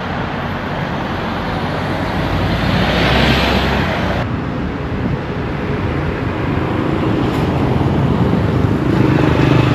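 Road traffic noise, with a vehicle passing about three seconds in.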